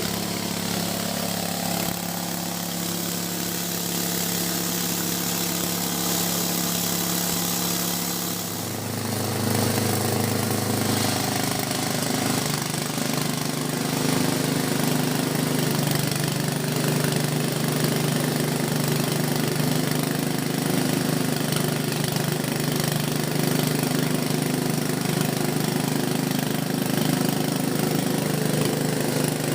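Engine-driven G-20 chopper-grinder for grass and organic waste running steadily. About nine seconds in, its pitch drops and it runs a little louder, as if it has taken on load.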